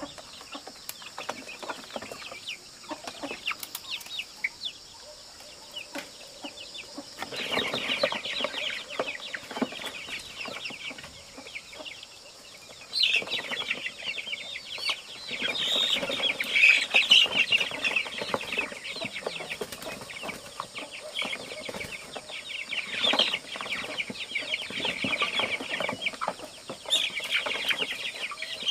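Chickens clucking agitatedly in repeated bursts as they are handled and moved by hand, the calls coming thick and fast from about seven seconds in and loudest in the middle and near the end.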